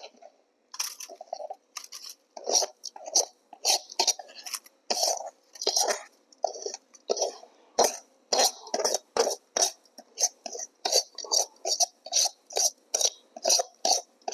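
Metal spatula scraping sticky jaggery-syrup-coated rice out of an iron kadhai onto a steel plate, in short, quick, repeated strokes that start about a second in and settle to about two or three a second.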